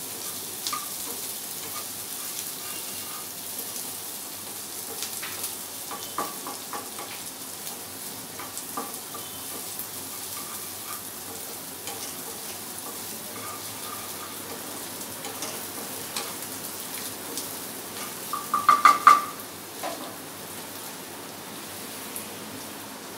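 Garlic and chopped vegetables sizzling in hot oil in a small frying pan, stirred and scraped with a spatula, browning. A short run of sharp, ringing clinks comes about nineteen seconds in and is the loudest sound.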